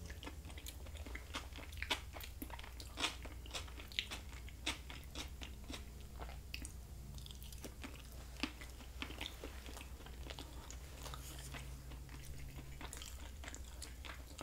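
Close-miked chewing of a mouthful of turkey dinner: soft, irregular wet mouth clicks, a few of them louder and sharper, over a faint low hum.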